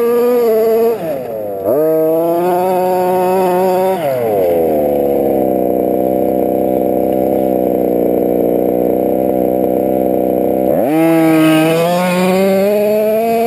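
Small two-stroke gas engine of a Losi 5ive-T 1/5-scale RC truck, a Rovan 30.5cc, revving under throttle. The pitch dips and comes back up about a second in, drops to a lower steady run around four seconds in, then revs up sharply near the end and holds high.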